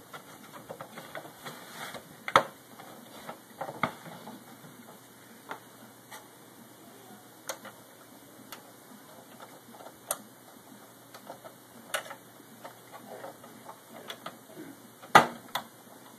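Plastic Xbox 360 case parts being handled and pressed into place: scattered light clicks and taps, a handful spread through, with the sharpest about two seconds in and again near the end.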